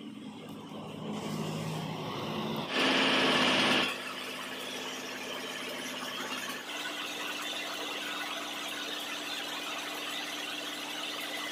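Lathe running with an 8 mm keyway cutter spinning in its chuck, fed into the end of a shaft clamped on the tool post. The cutter cuts steadily, a steady hum under a hissy scrape, from about six seconds in. A loud harsh burst about a second long comes near three seconds in.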